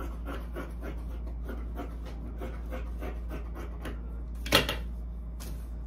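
Fabric scissors cutting through viscose-lycra knit, a fast run of small snipping clicks, with one louder click about four and a half seconds in.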